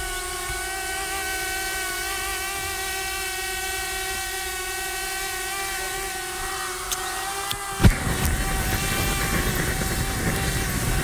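A steady motor whine with a held pitch, then about eight seconds in a sharp thump as a gas burner lights, followed by the steady rushing roar of its flame.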